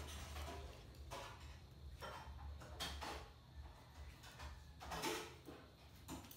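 Small dogs' claws clicking and scraping on a tiled floor as they play and scuffle, in scattered short scrapes about once a second, the loudest about five seconds in, over a low steady hum.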